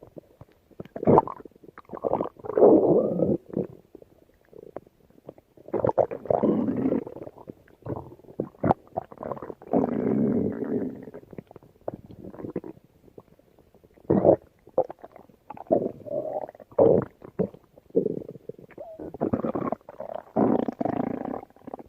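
Stomach growling: a run of irregular gurgles and rumbles. Longer rolling growls alternate with short sharp gurgles.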